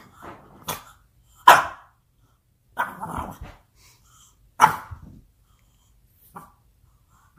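French bulldog barking into the couch cushions: about five short barks a second or so apart, the loudest about one and a half and about five seconds in, a faint one near the end.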